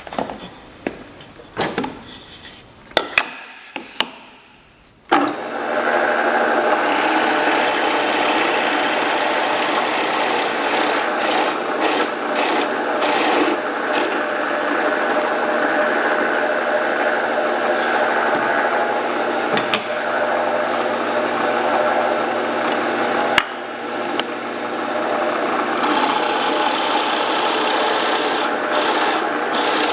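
A few knocks and clicks, then from about five seconds in a power tool starts working wood and runs steadily, a loud even noise with a hum in it.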